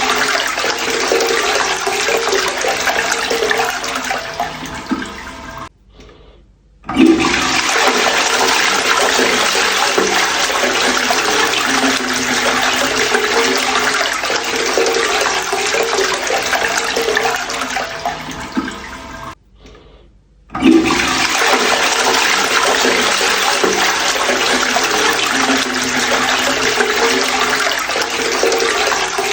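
Toilet flushing over and over: loud rushing water with some low gurgling. Twice the rush tails off and stops for about a second, then the next flush starts with a sudden surge.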